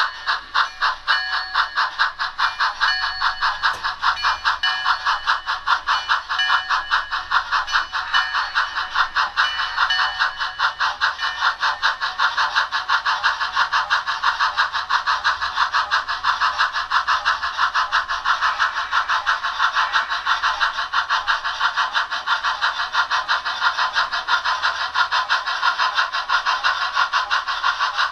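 Sound-equipped On30 model steam locomotive, its Tsunami sound decoder playing steam exhaust through the model's small speaker: quick, even chuffing that runs steadily as the locomotive moves. A ringing tone sounds over the first few seconds.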